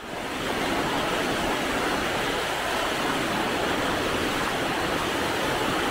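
A steady rushing noise, even throughout, with no distinct tones or knocks.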